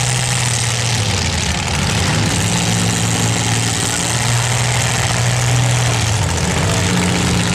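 Several compact cars' engines running together in a demolition derby, their pitch stepping up and down every second or so as they rev and ease off.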